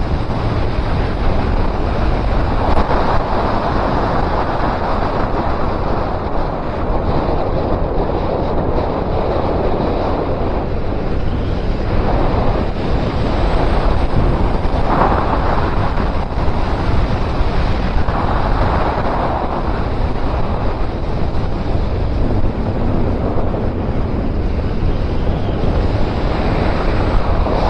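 Wind rushing over the microphone of a motorcycle riding at speed: a loud, steady noise that swells and eases every few seconds.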